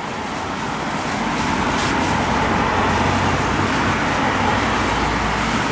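Steady roar of road traffic, with faint crinkling of a wet plastic bag being searched by gloved hands.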